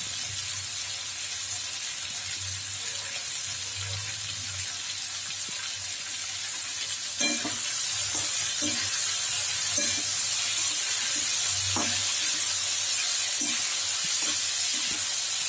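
Potato and onion strips sizzling in oil in a steel wok, stirred with a steel spatula that scrapes and knocks against the pan. The sizzle gets louder after a sharp click about seven seconds in.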